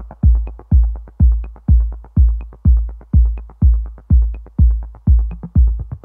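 Background electronic music with a steady low beat, about two beats a second, and light ticks above it.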